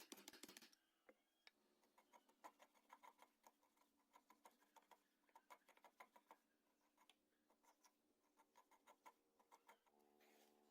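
Faint, irregular light ticks and taps over a low steady hum. Near the end a held pitched tone comes in.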